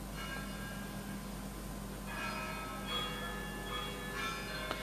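Faint bells ringing: several held, overlapping tones that grow stronger about two seconds in, over a low steady hum.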